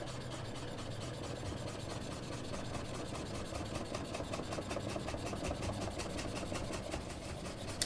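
Chef's knife rocking through a bunch of fresh parsley on a wooden cutting board, making rapid, even light taps and scrapes, over a faint steady low hum.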